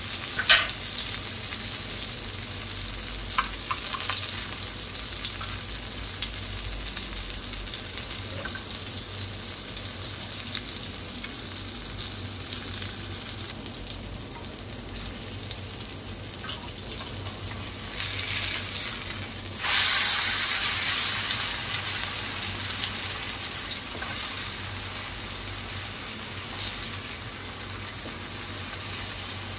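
Eggplant omelette frying in shallow oil in a nonstick pan: a steady sizzle with a few light clicks in the first few seconds. About twenty seconds in the sizzle surges suddenly louder, as the omelette is turned over into the hot oil, then slowly settles.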